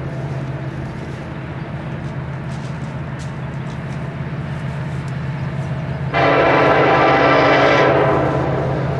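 Diesel freight locomotive running with a steady low drone. Its air horn sounds once, loud, about six seconds in, for roughly two seconds, then trails off.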